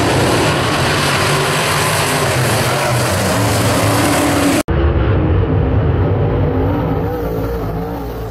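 Dirt-track race cars running hard past the stands, several engines at once, loud and steady. Just past halfway the sound cuts off abruptly. A quieter sound with a wavering pitch takes over and fades away.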